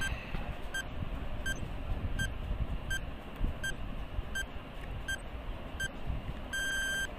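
Countdown timer sound effect: short electronic beeps about every three-quarters of a second, ending in a rapid run of beeps near the end, over faint low background noise.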